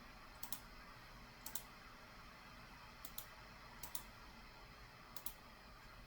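Computer mouse clicking: five quick paired clicks spaced irregularly over a few seconds, over faint room tone.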